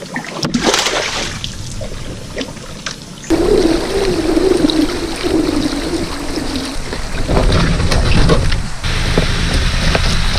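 A short water splash beside the kayak, then steady water and wind noise on the microphone while the kayak moves across the water, with a wavering hum for a few seconds in the middle.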